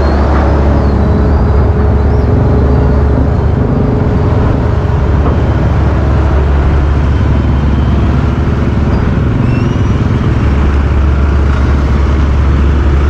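Boat engine running with a loud, steady low drone, under a rushing wash of noise.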